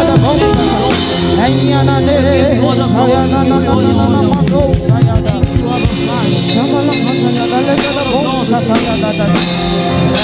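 Live praise-and-worship music: a band with a drum kit playing a steady beat under held chords, with singing. There is a run of drum hits about five seconds in.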